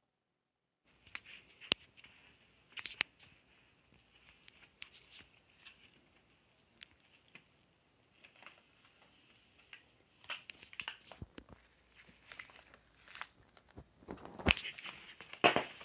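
A cat eating: quiet crunching and small clicks of chewing and nosing at food, broken by a few sharp knocks, with a louder clatter near the end.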